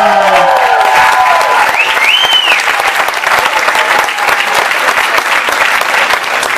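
Audience clapping and cheering, with one high rising-and-falling cry from the crowd about two seconds in.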